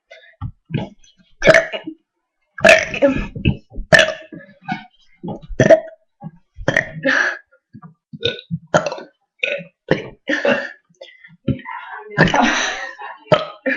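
A person burping the alphabet, forcing out one short burped letter after another in quick succession, with brief gaps between them.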